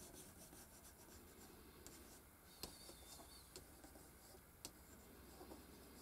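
Faint scratching and rubbing of an LED's rounded tip pressed and drawn over thin aluminium pie-tray foil, embossing circular grooves into it, with a few small clicks.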